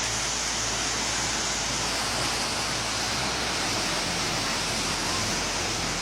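Steady rushing noise of a landslide mudflow pouring down a mountainside, even and unbroken.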